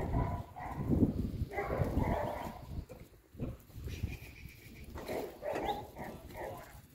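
Sheep bleating in several drawn-out calls about a second long, with the low clatter of the flock's hooves on concrete in the first two seconds.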